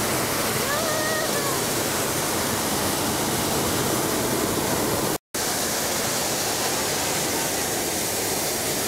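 Hot-air balloon propane burner firing, a steady loud rushing roar that cuts out for an instant about five seconds in.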